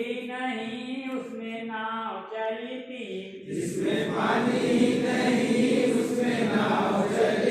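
A group of people singing a Hindi song together in unison. About halfway through, the tune gives way to a louder, noisier din from the group.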